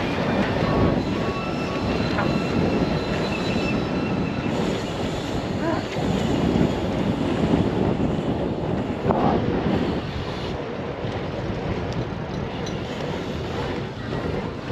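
BMX bike rolling over a packed-dirt track, a steady rumble of tyres on dirt through the whole lap section.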